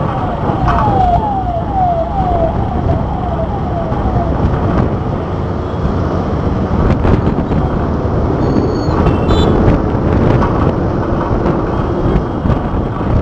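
Steady rumble of engine and road noise from a moving vehicle in city traffic. For the first four seconds an electronic falling chirp repeats about twice a second, and a brief high whistle-like tone sounds about nine seconds in.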